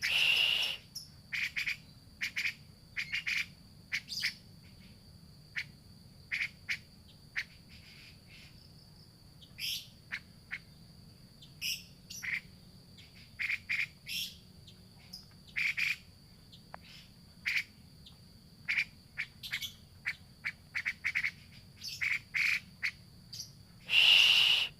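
Grey-cheeked bulbul (cucak jenggot) calling: a long run of short, separate chirping calls, with a loud harsh call right at the start and another near the end. A steady high-pitched tone runs underneath.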